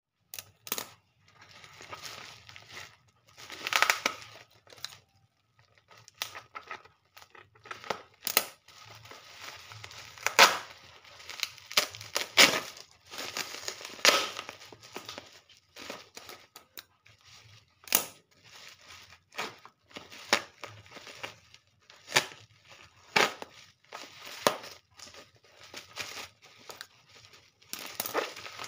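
Black plastic parcel wrapping and clear packing tape being slit with a cutter and pulled open: irregular crinkling and tearing, broken by many short, sharp clicks.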